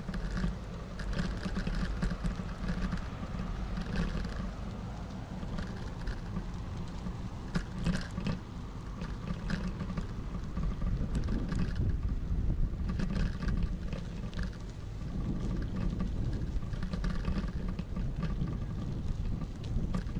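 Wind buffeting the microphone of a moving camera: a steady low rumble with scattered light clicks and ticks.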